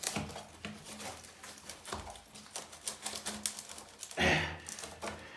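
Rapid, irregular small clicks and knocks of floor drain parts being handled and fitted into place.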